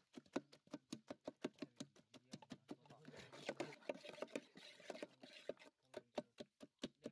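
Wooden spoon stirring and mashing chopped fruit in a large aluminium pot: a quick run of soft knocks, about five a second, with wet squelching that thickens midway.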